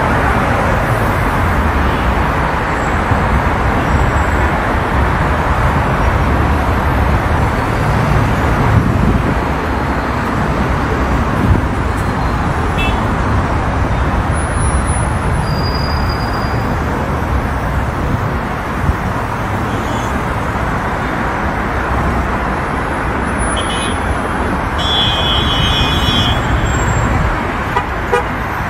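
Steady road traffic noise from a busy multi-lane city road, cars passing with continuous tyre and engine sound. A brief high-pitched tone sounds near the end.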